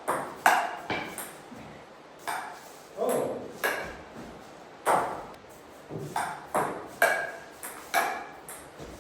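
A ball being hit back and forth with paddles: a string of sharp hits, each with a short ring, coming irregularly about every half second to second.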